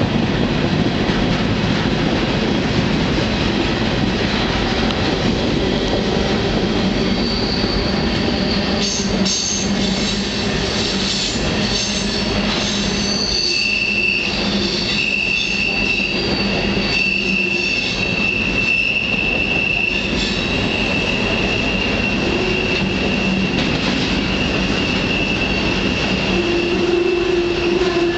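Freight train rolling at speed, heard from on board: a loud, steady rumble of steel wheels on rail, with high-pitched wheel squeal coming in about a quarter of the way through and holding, and a lower squeal joining near the end.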